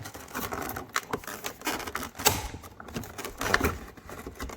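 Plastic and cardboard packaging being handled and cut open while an RC truck is unboxed: irregular sharp clicks and crinkling rustles.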